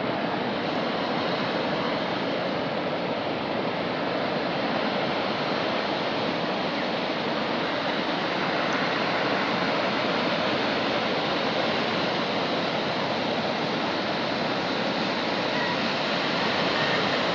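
Water pouring through a dam's spillway, a steady even rush with no breaks.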